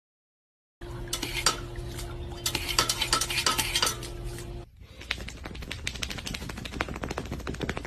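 Rapid clinking and clattering of hard objects over a steady hum, in two runs with a short break a little past halfway; it starts after about a second of silence.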